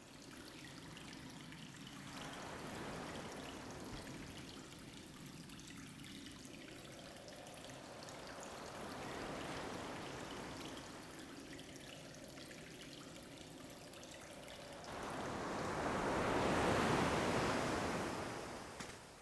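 Sea waves washing in and drawing back, in three slow swells, the last and loudest near the end.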